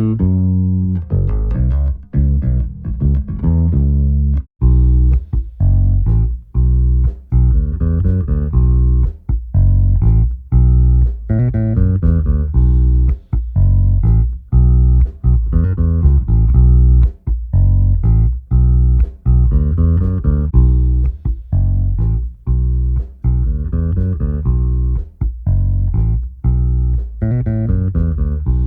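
Bass guitar playing a continuous line of plucked notes. It is a recorded bass part played back to demonstrate LA-2A-style opto compression.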